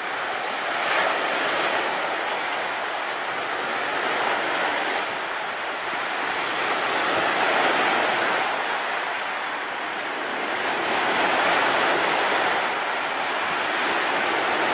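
Sea waves breaking on a pebble shore: a steady rush of surf that swells and eases every three to four seconds as the waves come in.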